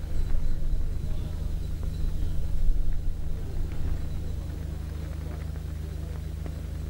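A steady low hum with a rumbling noise over it that eases after about four seconds, and faint voices in the background.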